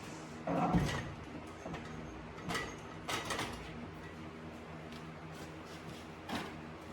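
Shop work noises over a steady low hum: a scraping rumble about half a second in, then a few short knocks and clanks.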